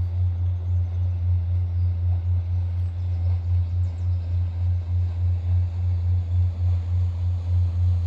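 Steady low engine drone, throbbing about three times a second.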